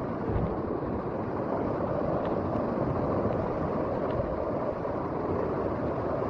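A fast river running high, rushing and breaking over boulders in rapids with a steady noise of water.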